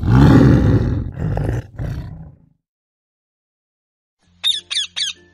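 Tiger roaring: a loud roar in about three pulses that dies out about two and a half seconds in. After a short silence, a parrot squawks three times in quick succession near the end.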